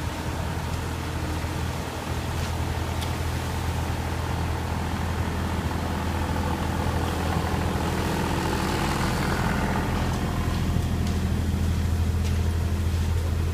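Steady low drone of engine-driven plant running at a concrete pour, growing slightly louder through the middle, with a few faint clicks and knocks over it.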